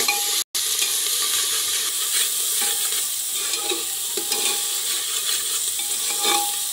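Onion paste sizzling in hot oil in an aluminium pressure cooker while a metal spoon stirs it, scraping against the sides and bottom of the pot again and again. The sound cuts out for an instant about half a second in.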